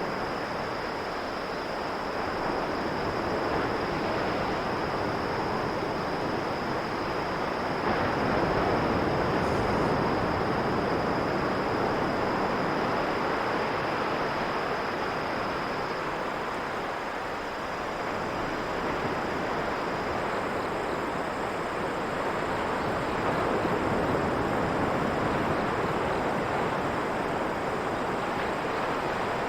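Sea waves washing ashore in slow swells, with insects chirring steadily on a high, even pitch.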